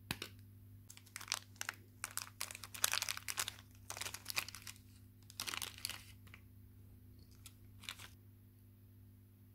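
One sharp snip of flush cutters through a thin two-core fan wire, then a small plastic zip-lock bag of heat-shrink tubing crinkling in bursts as it is opened and handled for about five seconds, with a few lighter rustles near the end.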